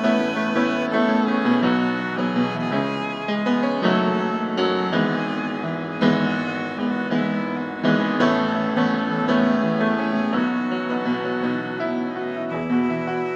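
Violin and grand piano playing an instrumental passage together, the violin carrying the melody over the piano.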